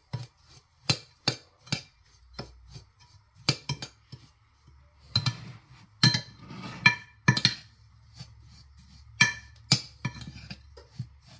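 A metal utensil stirring damp graham cracker crumbs and melted butter in a ceramic bowl, with irregular sharp clinks and taps against the bowl and soft scraping through the crumbs between them.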